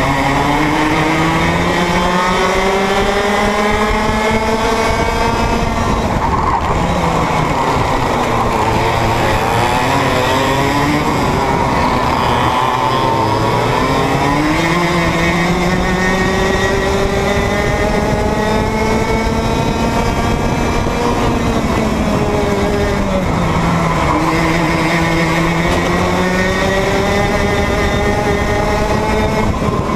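Two-stroke racing kart engine heard from on board, revving slowly up through the rev range along the straights and dropping off sharply as the kart slows for corners, about three times.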